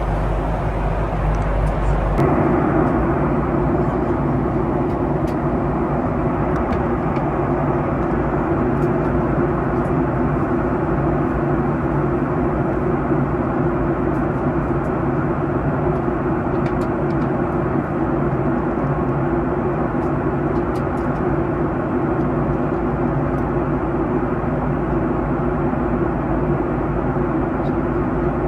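Steady engine and airflow noise heard inside the cabin of a Boeing 737-800, a constant hum with a deeper rumble beneath it. About two seconds in, the rumble shifts and the hum grows a little stronger, then holds steady.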